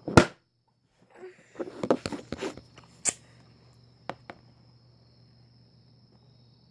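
Hands squishing and kneading sticky slime as activator is worked in, with a knock at the start and a few sharp clicks from handling the container.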